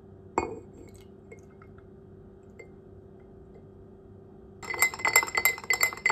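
A ceramic cup clinks once against a tall drinking glass, then matcha is poured quietly into oat milk in the glass. About four and a half seconds in, a spoon starts stirring fast, clinking rapidly against the inside of the glass.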